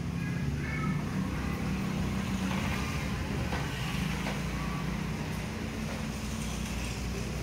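Steady low engine hum, as of a motor vehicle idling, with a few brief high-pitched tones in the first second and faint clicks near the middle.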